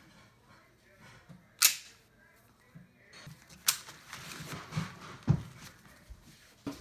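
Hi-Capa airsoft pistol and its magazine being handled: two sharp clicks of the parts, then rattling and a dull knock as it is set down.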